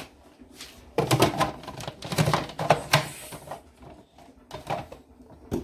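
Kitchen handling noise: a quick run of sharp clicks and knocks for about two and a half seconds, then two single knocks near the end, as things are set into and onto a blender jar before it is switched on.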